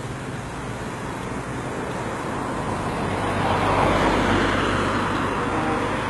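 Steady rumble of road traffic and a freight train passing, swelling about four seconds in and then easing.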